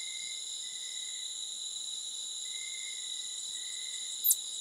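Steady, high-pitched chorus of night insects, several shrill tones held without a break. About four seconds in comes a single brief, very high squeak that falls quickly in pitch.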